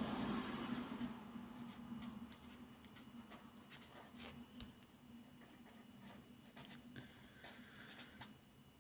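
Pen writing on a sheet of paper: faint scratching strokes, a little louder for the first couple of seconds, then fainter.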